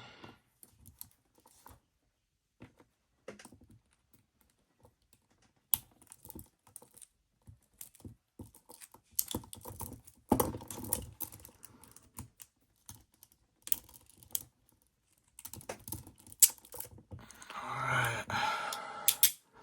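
Peerless 700c handcuffs being worked with picking tools: scattered small metallic clicks and taps, with a denser stretch of rattling near the end.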